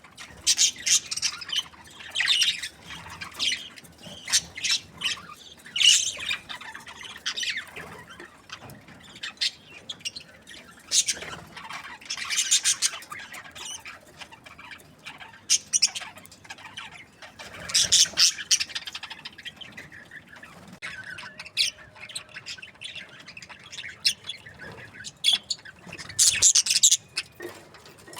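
Budgerigars chirping and squawking: a flock's busy chatter of short, high-pitched calls, with louder bursts every few seconds.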